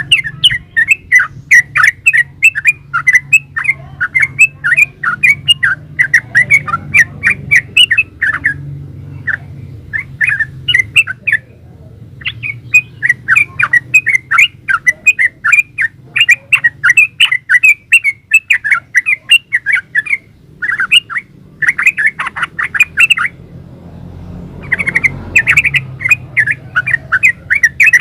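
Yellow-vented bulbul (trucukan) singing long runs of rapid, chattering notes, with a few short pauses between the runs.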